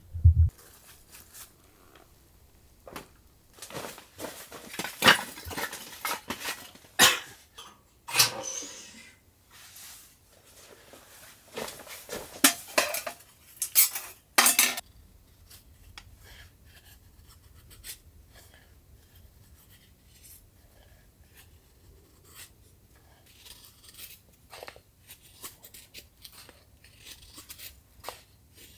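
A low thump, then camping gear and metal cookware being set down and handled, with a run of sharp clatters and knocks. For the second half it goes quieter: small quick scrapes and ticks of a knife shaving curls off a stick of kindling.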